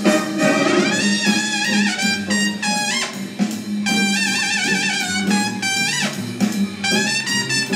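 Upbeat, jazzy instrumental music led by brass with a drum kit, a melody line with vibrato over a steady accompaniment, playing for a stage dance number.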